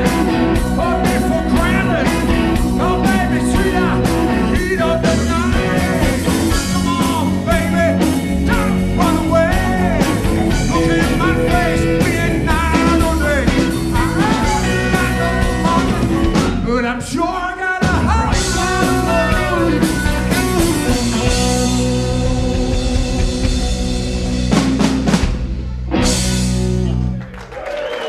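Live rock band with electric guitar, bass guitar, drum kit and keyboard playing the closing bars of a rock song. The band breaks off briefly about 17 seconds in, then ends on a final crash near the end.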